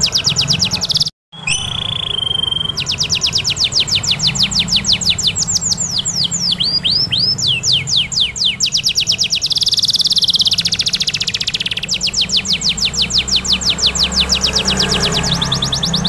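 Yellow domestic canary singing a long rolling song: rapid swept notes repeated at about eight a second. The song drops out briefly just after a second in, then a single held whistle leads back into the trills. Around the middle comes a very fast buzzy trill.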